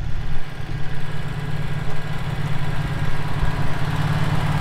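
Generac GP15000E portable generator's V-twin engine running steadily with no load, its idle control engaged.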